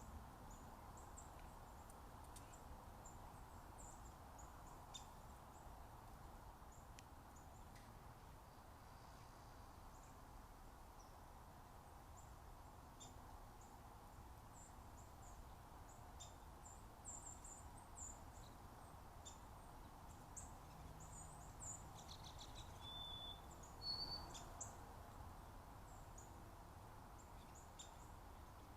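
Small birds chirping faintly: many short, high chirps scattered throughout, busier past the middle, with one louder note near the end, over a steady low background hum.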